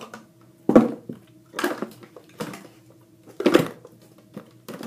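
Plastic toiletry bottles knocking and clattering together as they are handled and put back into a container, about five separate bursts of clatter.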